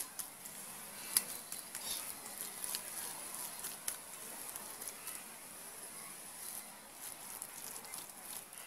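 A hand kneading a soft mash of raw banana and potato in a stainless steel plate: irregular soft squishing with occasional sharp clicks against the metal, the loudest about a second in.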